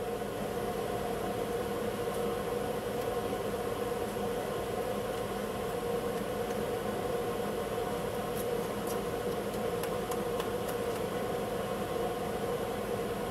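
Melting furnace running with a steady rushing noise as flames burn above the crucible of molten silver. A few faint ticks come in the second half.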